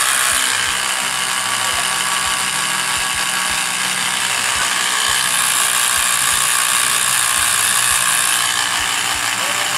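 Electric motor driving a robot gearbox mechanism, running at a steady whir and grinding with a ratchety rattle. It starts and stops abruptly.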